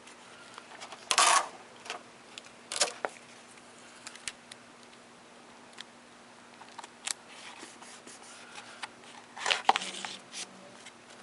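Cloth book-repair tape and paper being handled: short bursts of rustling with small clicks and snips. The loudest come about a second in, near three seconds, and around nine and a half seconds.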